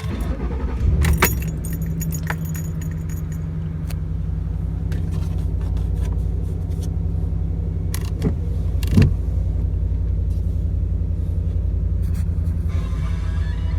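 2008 Ford Expedition's 5.4 V8 starting up and settling into a steady, smooth idle, running on a newly installed throttle body after an ECM reset. There are a few sharp clicks along the way.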